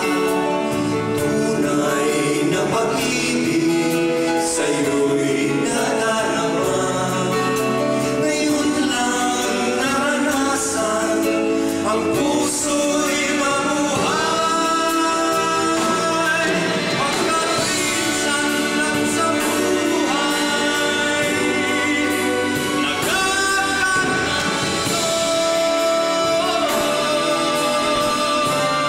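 Three male voices singing a Tagalog heartbreak-ballad medley in harmony over a live band, with several long held notes.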